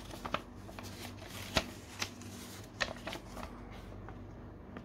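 A folded paper instruction leaflet being unfolded and flattened by hand: rustling with several sharp paper crackles, the loudest about a second and a half in.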